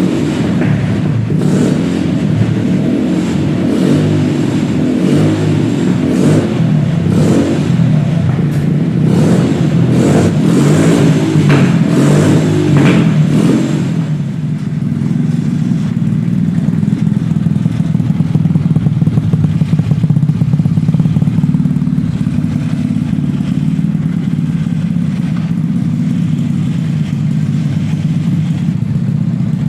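Small carburetted petrol engine of a mini Supra car running through its new exhaust: revved in repeated short blips for about the first half, then settling into a steady, lower run.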